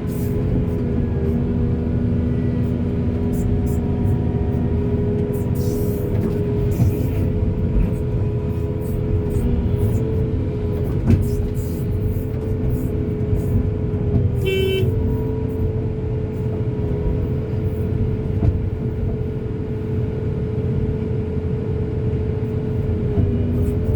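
Backhoe loader's diesel engine running steadily under work, with a held whine over the rumble and scattered light clanks. A short pitched tone sounds about halfway through.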